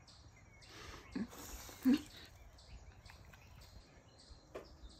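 Teeth biting through a crispy cheese crust: a brief crackly crunch, then quiet chewing. A short low sound comes about two seconds in.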